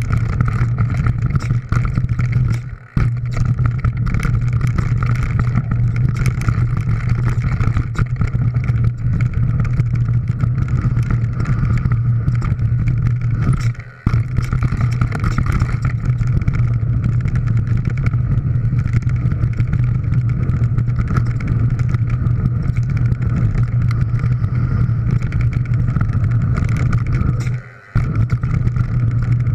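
Mountain bike riding fast down a rocky gravel trail, picked up by a handlebar-mounted GoPro: a steady wind rumble over constant rattling and clatter of the tyres and bike on stones. The noise drops out briefly three times.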